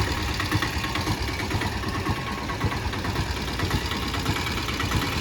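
Steady mechanical running noise, like an engine idling, with a fine rapid ticking texture.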